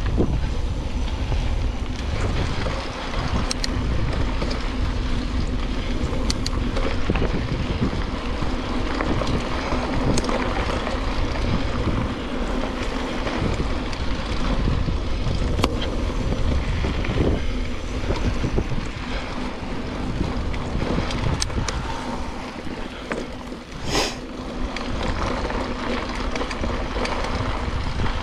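Wind buffeting a helmet or handlebar action camera as a mountain bike rolls along a dirt singletrack, with the tyres running over the dirt. A few sharp clicks and knocks from the bike over the bumps stand out, the loudest near the end.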